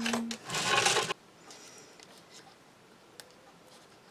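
A short burst of rustling and scraping as craft tools and papers are handled on a tabletop, ending about a second in. Then it goes quiet apart from a single faint click.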